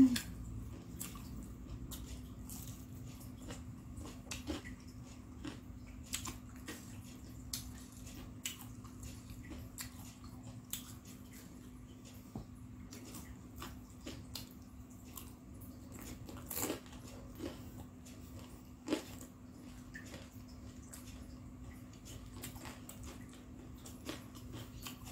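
Close-up eating sounds: scattered bites, crunches and wet chewing of Indonesian fried snacks (gorengan) dipped in peanut sauce, over a steady low hum.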